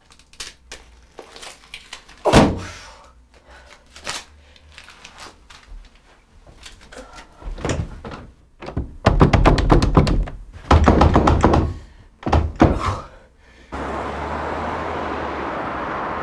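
A locked bathroom door being thumped and rattled from the inside: one heavy thud about two seconds in, scattered small knocks, then bursts of rapid banging and rattling in the second half. Near the end this gives way to a steady background hum.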